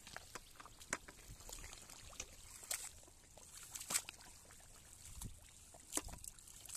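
Water trickling and splashing off a wet cast net as it is hauled and handled in shallow water and mud, with scattered short, sharp squelches and slaps, the loudest about four seconds in.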